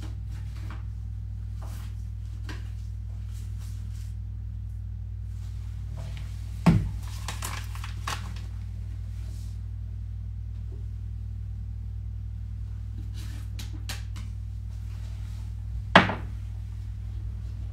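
Kitchen drawers and cupboards being handled: scattered clicks and knocks, with two sharp knocks about seven and sixteen seconds in, over a steady low hum.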